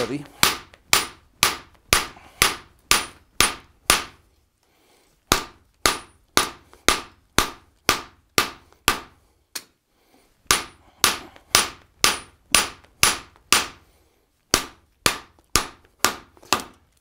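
Hand hammer striking red-hot square steel bar on an anvil, steady sharp blows about two a second, each with a short ring, in four runs separated by brief pauses. It is the sound of drawing out the bar, thinning the stock for a hook.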